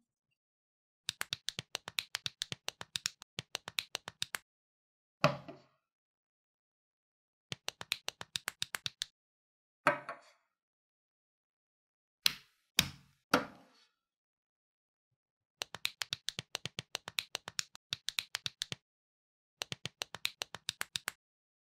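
Plastic LEGO-style building pieces being handled and snapped together: several runs of rapid, even clicks and a few single sharper snaps, with dead quiet between them.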